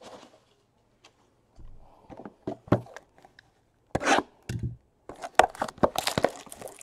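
Hands handling a shrink-wrapped cardboard trading card box: a few light knocks, then a sharp scraping burst about four seconds in as a box cutter is taken to the wrap, followed by a quick run of crackling and tearing as the plastic and cardboard flap are opened.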